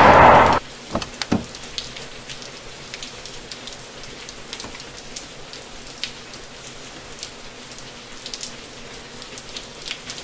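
Steady rain falling, with scattered sharp drop hits. A louder noise cuts off abruptly about half a second in.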